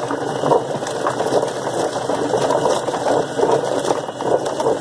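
Whizbang chicken plucker running, its spinning plate tumbling a scalded chicken against the rubber plucking fingers with a dense, irregular mechanical clatter. The owner says the plucker is still binding a little, and thinks that is because it is a heavier bird.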